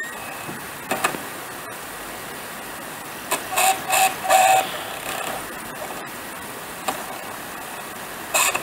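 PowerBook G4's slot-loading optical drive spinning up and seeking on the install DVD at boot, in short whirring bursts, with a cluster of them about three to four and a half seconds in.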